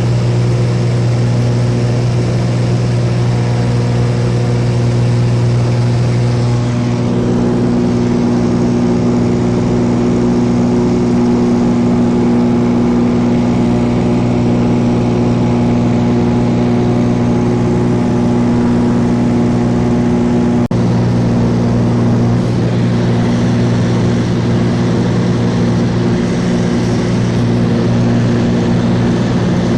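Cessna light aircraft's engine and propeller droning steadily in flight, heard from inside the cabin.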